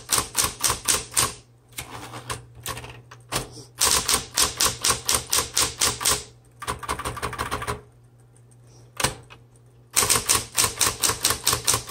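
Smith Corona Electra 110 electric typewriter typed in quick runs of keystrokes, about five a second, with the shift lock engaged. The machine's motor hums steadily underneath. The runs break off twice, and a single strike comes in the lull near the end.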